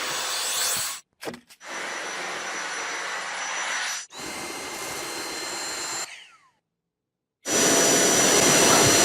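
Stick vacuum cleaner motor running with a steady high whine, in several short stretches that start and stop abruptly. About six seconds in the motor winds down with a falling whine. After a second of silence a louder stretch begins.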